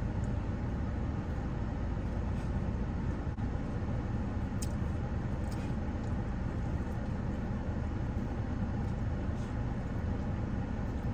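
Steady low rumble of a car running, heard from inside the cabin, with a couple of faint clicks about halfway through.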